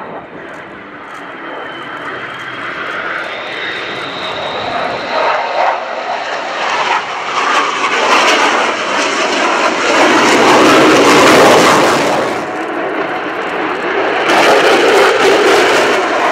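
Lockheed Martin F-22 Raptor's twin Pratt & Whitney F119 turbofans in a display pass, with rough jet noise. It builds steadily to its loudest about ten seconds in, eases briefly, then rises again near the end.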